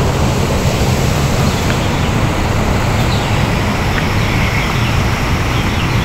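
Steady rushing of a nearby waterfall and its stream, an even roar with no break.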